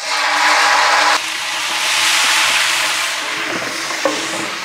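Ginger-garlic paste sizzling loudly in hot oil in a large aluminium pot, starting suddenly as it goes in. A metal ladle stirs it, with a few light clicks of the ladle against the pot near the end.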